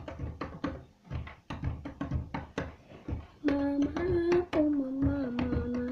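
A quick rhythmic tapping beat, about four strokes a second. About three and a half seconds in, a child's voice joins with long held sung notes over it.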